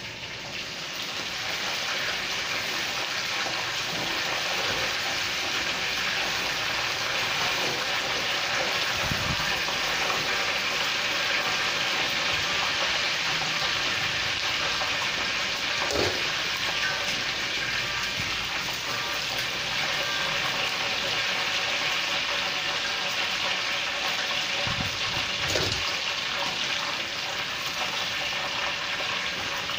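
Chicken pieces deep-frying in a wok of hot oil: a steady sizzle, with a few light knocks as the wire strainer works in the wok.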